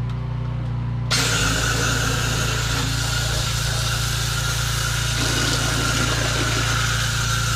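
Engine-driven drain jetting unit running steadily. About a second in, the loud, steady hiss of its high-pressure water jet starts and keeps going.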